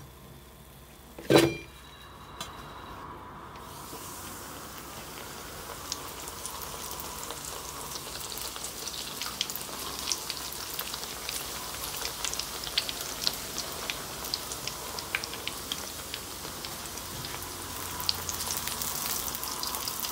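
Rings of bur dough deep-frying in hot oil: a sizzle with scattered crackling pops that starts a few seconds in and grows louder. A single loud knock sounds about a second in.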